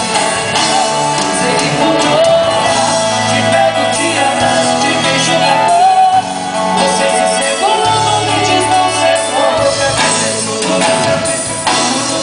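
A song: a singing voice holding long, wavering notes over steady instrumental accompaniment.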